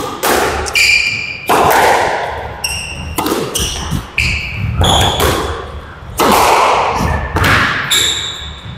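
Squash rally: the ball is struck by rackets and slams into the court walls in a quick string of sharp hits, roughly one every second or less, each ringing briefly in the enclosed court.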